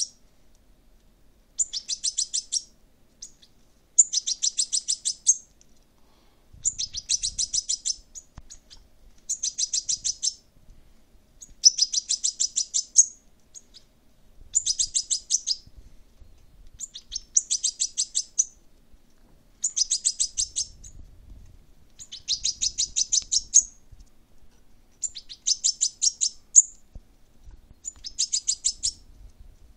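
Fledgling European goldfinch giving begging calls while being hand-fed: about a dozen bursts of rapid, high-pitched chirps, each lasting about a second, repeated every couple of seconds.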